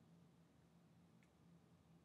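Near silence: room tone with a steady low hum and one faint click about a second in.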